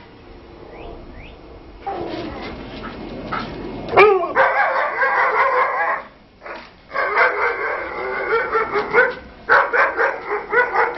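Alaskan Malamutes vocalizing at play: three stretches of wavering, pitched dog calls from about four seconds in, the first opening with a sharp click.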